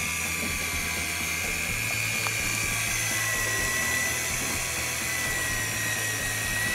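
Daiwa electric fishing reel's motor winding in line with a steady high whine, dipping slightly in pitch about three seconds in. It is hauling a large squid up from around 350 m on a hard-bent rod.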